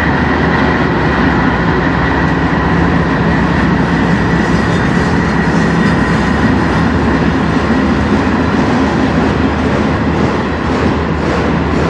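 A CN diesel freight locomotive's engine drones steadily as it passes, with a steady high whine, while freight cars roll by behind it, their wheels rumbling and clicking over the rails.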